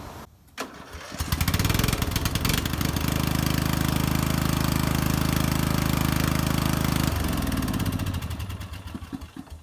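A 15.5 hp overhead-valve Briggs & Stratton riding-mower engine fires up about a second in, on the first try, and runs steadily with a new ignition coil and spark plug that cure its no-spark fault. About seven seconds in it is shut off and winds down, falling in pitch until it stops near the end.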